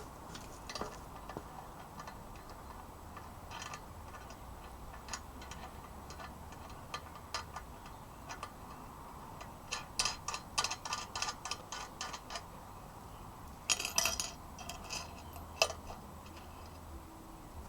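Light metallic clicks and taps of bolts and steel parts being handled and fitted while a vise is mounted on its stand, scattered at first, with a quick run of clicks about ten seconds in and another cluster a few seconds later.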